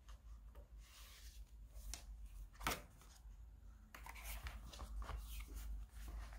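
Faint paper and cover rustling as a small paper diary's elastic closure band is slipped off and the book is opened and its pages handled, with one sharp snap about two and a half seconds in and denser rustling near the end.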